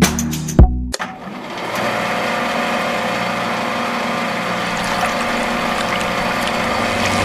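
Drum-backed music that cuts off about a second in, followed by a steady hissing, humming machine-like noise that swells over a second and then holds level.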